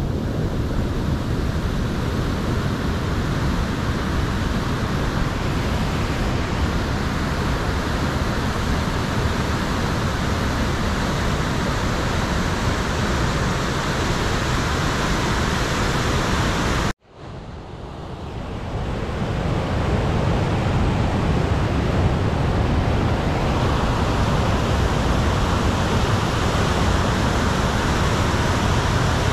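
Fast, turbulent river rapids rushing in a steady, loud roar of white water. About halfway through, the sound cuts out suddenly, then fades back in over a couple of seconds.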